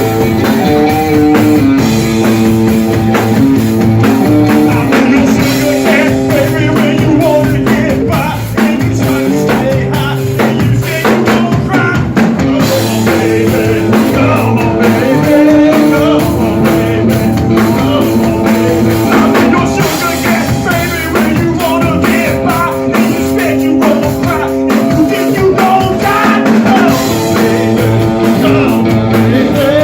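Rock band playing: electric guitar over a drum kit in a steady rock beat.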